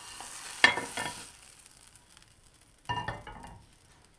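Hot frying pan's sizzle dying away as a folded omelette is slid out onto a china plate. There is a sharp knock just over half a second in and a ringing clink of crockery about three seconds in.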